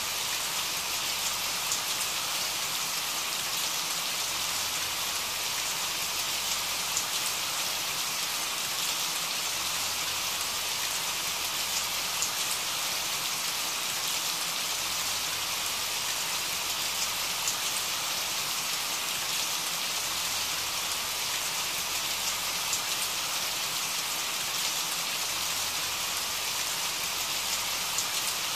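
Steady rain sound: an even, unbroken hiss with no breaks or changes.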